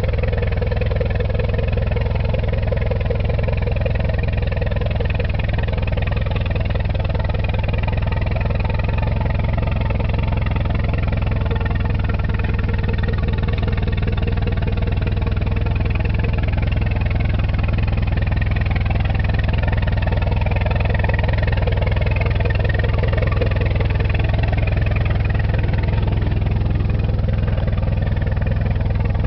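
Farmall Regular tractor's four-cylinder engine running steadily while pulling a corn cultivator.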